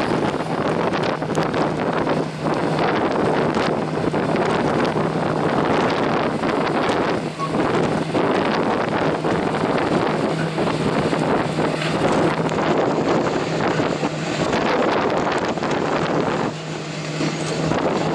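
Strong wind buffeting the microphone in gusts, over a steady low drone of machinery that drops out about a second and a half before the end.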